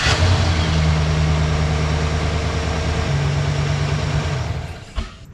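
2008 Chevrolet Silverado 1500's engine idling just after starting, a steady hum that stops about four and a half seconds in, followed by a single knock.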